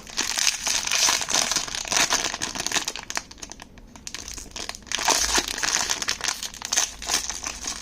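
Crinkly blind-box packaging being handled and torn open by hand to get at a small figure, a dense run of crackles and rustles with a short pause partway through.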